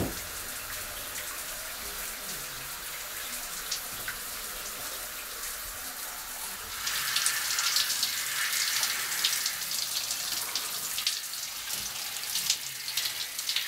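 Shower running, a steady spray of water that grows louder and more spattery about halfway through.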